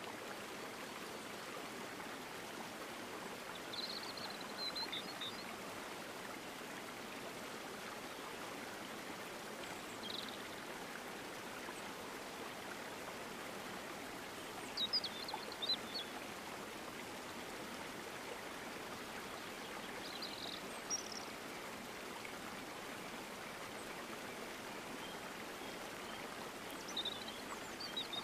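Steady rushing noise of flowing water, like a stream, with short high bird chirps every five seconds or so.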